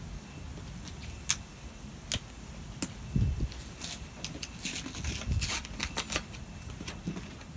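Cardboard and paper packaging being handled: a few separate sharp clicks and taps, then from about four seconds in a quick run of crackling clicks and rustling as the paper sleeve is slid off the box.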